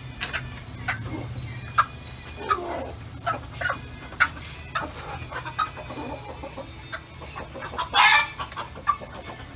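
Chickens clucking in many short, scattered calls, with one louder harsh burst about eight seconds in.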